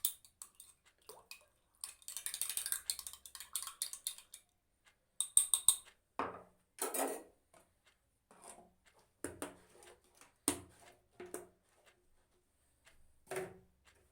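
Spoon stirring honey into onion juice in a container, clinking rapidly against its side for a couple of seconds, then a few separate, louder clinks and knocks.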